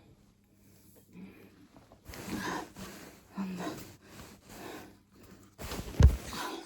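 A woman breathing heavily through her mouth in short, gulping breaths, as when swallowing air to work up a burp, then a brief, loud, deep thump near the end.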